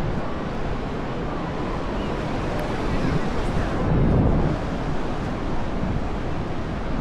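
Sea waves washing onto a beach, with wind buffeting the microphone, strongest about four seconds in.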